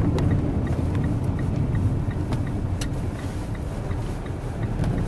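Car driving along a road, heard from inside the cabin: a steady low rumble of engine and tyres. Over it runs a light, quick, even ticking from the turn indicator.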